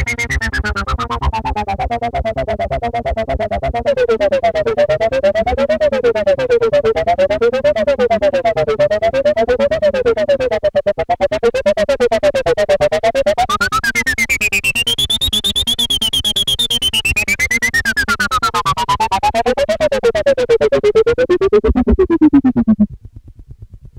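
Behringer Poly D analog synthesizer playing a fast repeating sequenced pattern while its resonant filter is swept by hand. The tone first sweeps down, then wobbles up and down evenly, opens up bright and closes again, and stops abruptly about a second before the end.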